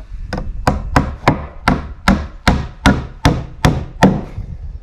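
Claw hammer driving a nail through a 1-inch wooden roof board into a rafter, with about eleven steady blows at roughly two and a half a second.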